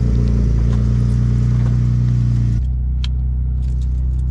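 Ford F-150 Raptor's twin-turbo V6 idling steadily. About two-thirds of the way in the sound changes to the duller idle heard inside the cab, with a few light clicks.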